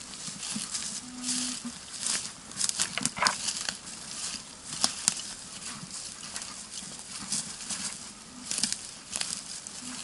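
Footsteps crunching and rustling through dry leaf litter, twigs and grass, in an irregular walking rhythm. About a second in, a metal detector gives a short, low, steady tone.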